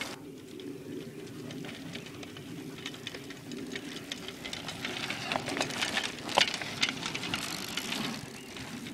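Children's bicycles riding fast over a dirt track: steady tyre rumble with scattered rattles and clicks, and a few louder clacks a little past halfway.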